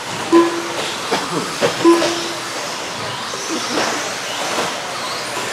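Several 1/10-scale electric stadium trucks with 13.5-turn brushless motors racing on an indoor dirt track: motor whine rising and falling with throttle, over the rush of tyres on dirt. Two short steady tones sound, one about half a second in and one about two seconds in.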